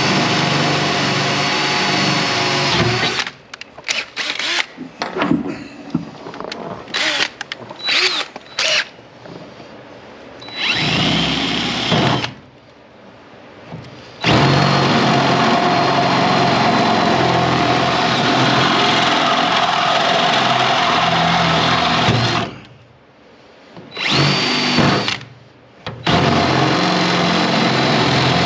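Cordless drill drilling out holes in a pickup's bed side rail, with a high whine. It runs steadily at first, then in a string of short trigger bursts, then in long steady runs about halfway through and again near the end.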